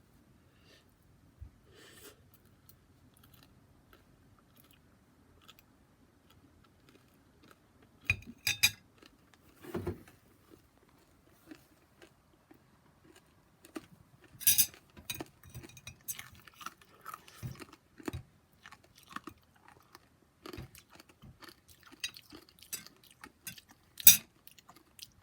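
A person biting and chewing hard kuromitsu black-sugar candy, with irregular crunches. A quiet stretch first; the crunching starts about eight seconds in and is loudest in a few sharp bites.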